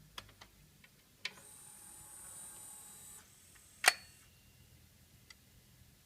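McIntosh MCD7009 CD player's mechanism, freshly revised with new drive and loading belts, working. A few small clicks, then its motor whirs with a high whine for about three seconds. A sharp clack near the end of the whir is the loudest sound, and faint ticks follow.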